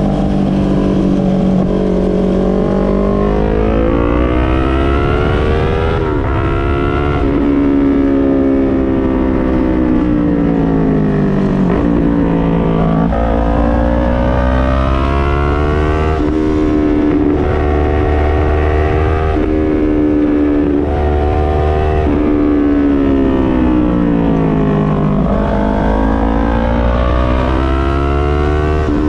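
Yamaha MT-03's parallel-twin engine through an SC-Project full exhaust system, pitch climbing under acceleration and falling off as it slows, over and over, with a sudden drop about six seconds in.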